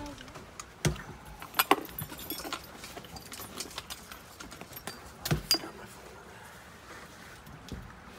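Scattered metallic clinks and rattles of gear being handled inside a fire engine's cab, with a few sharper knocks about a second in, near two seconds and around five seconds.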